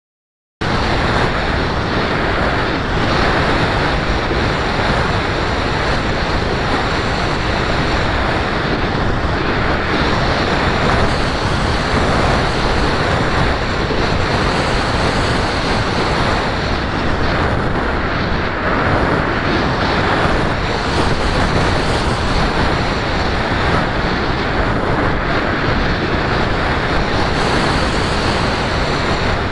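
Steady rushing wind on the microphone of an onboard camera riding a fast-flying FPV model aircraft, cutting in abruptly about half a second in.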